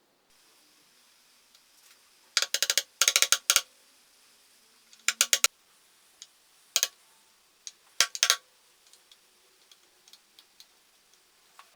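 Small metal parts of an old cash drawer clicking and clinking as they are handled and fitted back together: several quick clusters of sharp clicks, then a few faint ticks near the end.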